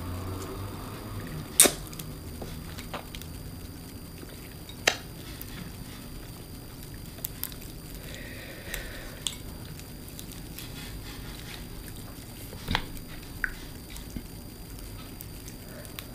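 Seafood eating sounds: a few sharp cracks and clicks, the loudest about one and a half, five and thirteen seconds in, with soft wet squishing between, from crab, crawfish and shrimp shells being cracked and peeled.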